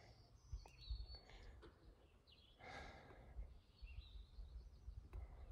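Near silence: faint low rumble of wind on the microphone, with a soft breath about halfway through.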